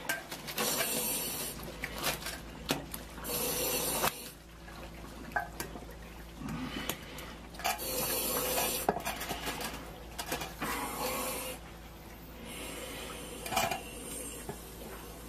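Bursts of rushing, splashing water every few seconds, with scattered sharp clanks and knocks in between.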